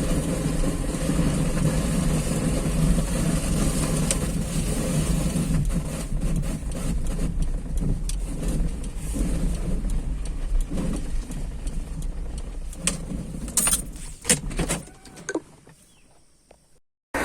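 Car driving with a steady low rumble from engine and road. Near the end there are scattered knocks and clicks as the sound fades out almost to nothing.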